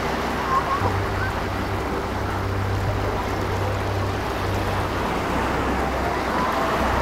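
Ocean surf washing onto a beach: a steady rush of breaking waves. A low rumble comes in about a second in and eases off around five seconds.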